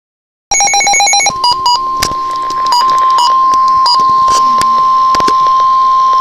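Emergency alert received over the radio: a quick string of short beeps, then from about a second in the NOAA Weather Radio warning alarm tone, one steady high tone, broken by crackles and pops of reception static.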